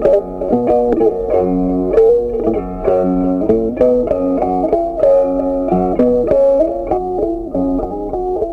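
Background music: a plucked guitar melody, the notes changing several times a second.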